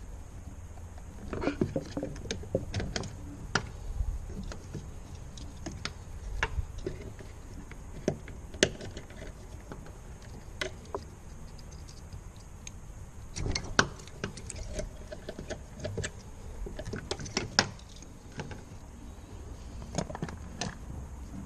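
Irregular clicks, taps and rattles of hand work inside a car door with its trim panel off: a screwdriver prying at plastic wiring connectors and cables against the door's metal frame, with a few sharper knocks, over a faint steady low hum.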